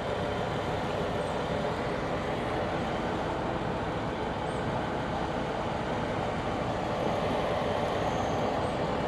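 Steady mechanical hum with an even rushing noise, unchanging throughout, typical of a truck's running engine or cab fan.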